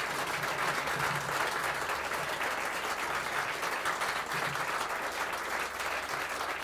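Audience applauding steadily, a sustained round of clapping.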